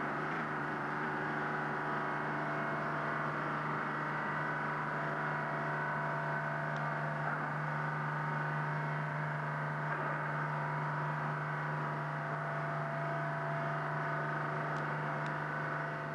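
Hoverspeed SR.N4 hovercraft's gas turbines and propellers running at a steady pitch: a constant low hum with several steady higher whining tones above it.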